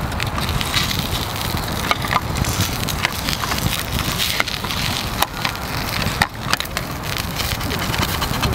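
Open wood fire crackling under a frying pan, with scattered sharp pops over a steady low rumble.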